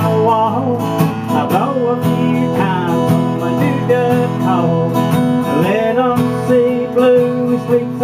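Acoustic guitar strummed steadily, with a man's voice singing over it.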